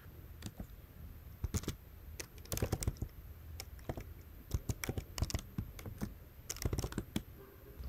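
Typing on a computer keyboard: irregular keystroke clicks in short runs.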